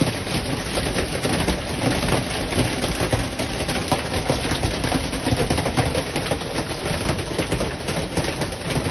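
Heavy hail pelting down: a dense, steady clatter of countless hailstones striking the ground and hard surfaces.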